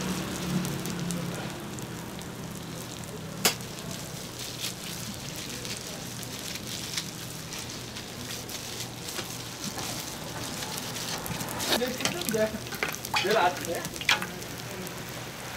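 Sorghum hotteok frying in oil on a flat griddle, a steady sizzle. A sharp clack comes about three and a half seconds in, and metal tongs and hotteok presses clink several times near the end.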